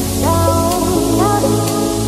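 Electronic background music: a synth melody of held notes with short upward slides over a steady bass line.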